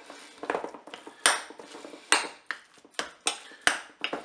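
Metal spoon stirring minced meat in a glass bowl, knocking against the bowl in about six sharp clinks between softer mixing strokes.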